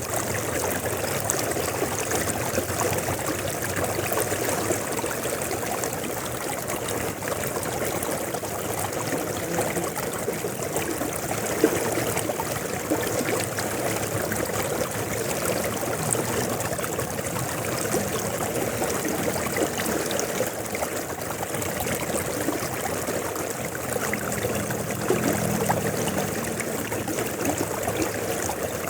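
River water flowing steadily, with one brief click about twelve seconds in.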